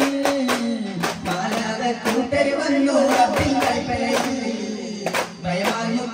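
Duff muttu: voices singing a devotional song over rhythmic strokes of duff frame drums.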